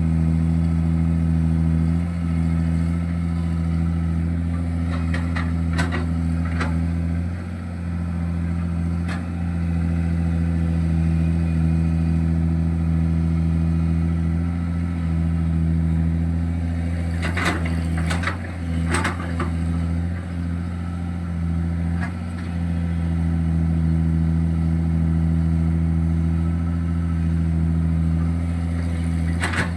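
JCB excavator's diesel engine running steadily, with a few sharp metallic knocks scattered through, a cluster of them about two-thirds of the way in.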